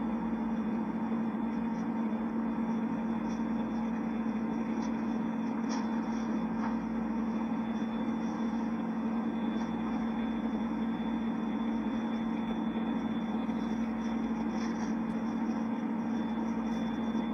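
Steady room hum with a hiss over it, even throughout, with a couple of faint ticks about six seconds in.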